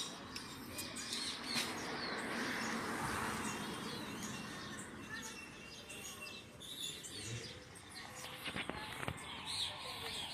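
Aviary birds, parrots among them, chirping and whistling in many short scattered calls, with a few sharp clicks near the end.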